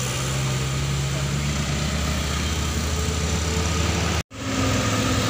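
Engines of road traffic (cars, a dump truck and motorcycles) running with a steady low drone. About four seconds in, the sound cuts out abruptly for a moment and comes back as a different steady engine hum.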